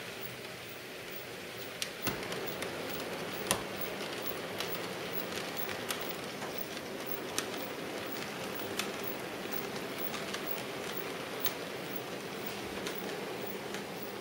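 OO gauge model diesel locomotive running on DC, its electric motor and gearing giving a steady whirr as it hauls a train of model hopper wagons, with scattered sharp clicks from the wheels on the track every second or so.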